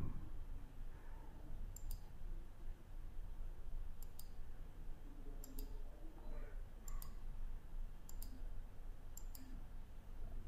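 Computer mouse clicking, mostly in quick double-clicks, about six times spaced a second or two apart, over a faint low background hum.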